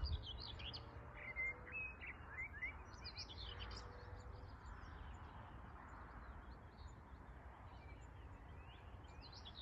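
Small songbirds singing and calling: quick high chirps and short trills, busiest in the first few seconds and thinning out after, over a low steady rumble.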